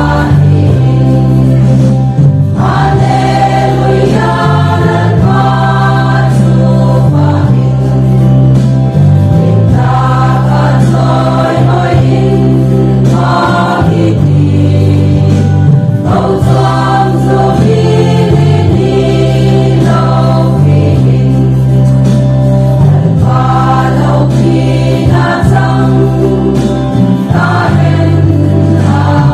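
Women's choir singing a gospel song over a heavy bass line that changes note every second or two.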